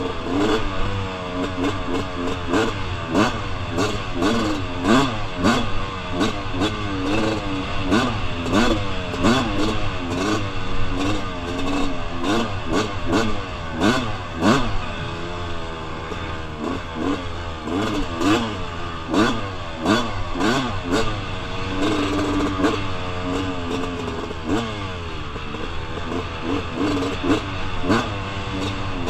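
2001 Suzuki RM250's single-cylinder two-stroke engine revving up and down over and over as the throttle is worked on a rough trail, with frequent knocks and clatter from the bike over the bumps.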